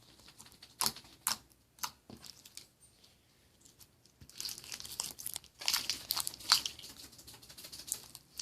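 Slime being worked by hand, crackling and popping: a few sharp pops in the first two seconds, then a dense run of crackles from about halfway through.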